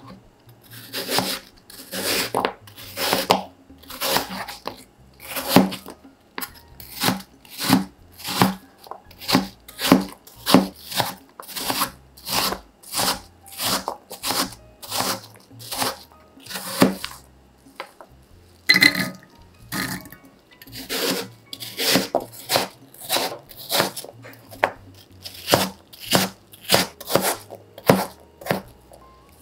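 Chef's knife slicing and dicing peeled raw apple on a cutting board: a steady run of knife strokes, about two a second, each ending in a tap of the blade on the board.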